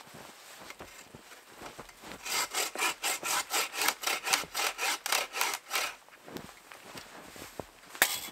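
Rapid rhythmic rasping of wood on wood, about five strokes a second for nearly four seconds, then a single sharp crack near the end.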